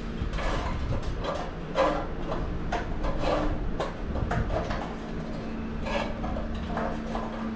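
Bare copper grounding wire scraping and rattling against a metal pipe as it is pushed in by hand, in irregular short strokes, over a steady low hum.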